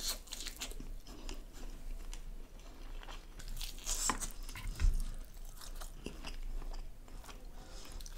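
A person biting into and chewing a dry piece of chicken, a run of clicks and crunches, with the loudest bites about four and five seconds in.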